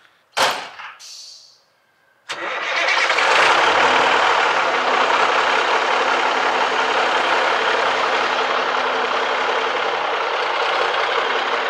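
1979 International Transtar II cabover's Cummins 290 straight-six diesel starting: a sharp sound with a short trailing hiss, then the engine catches a little over two seconds in and runs steadily and loudly.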